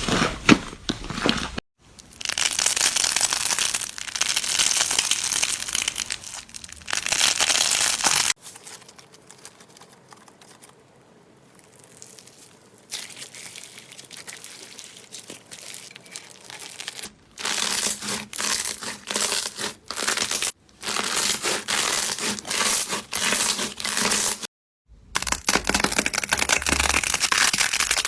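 Slime being squeezed, pressed and crushed by hand, giving dense crackling sounds, in several short clips that cut off suddenly, with a quieter, softer stretch in the middle.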